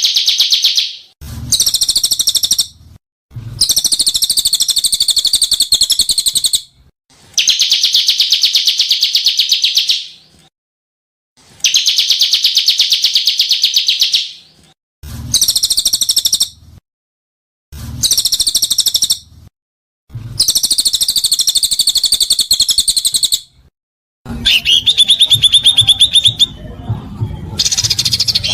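Songbird harsh 'kasaran' song: about nine loud phrases of very rapid, rattling trills. Each phrase lasts one to three seconds, with brief pauses between them, and the last phrase is more varied.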